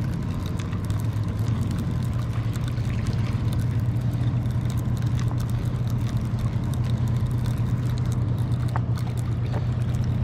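Steady low engine drone. Over it come faint ticks from a spinning reel being cranked in on a small hooked fish.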